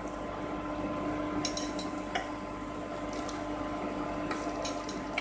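Sambar poured from a steel ladle over vadas in a glass bowl, with a few light clinks of the ladle against the dishes, over a steady hum.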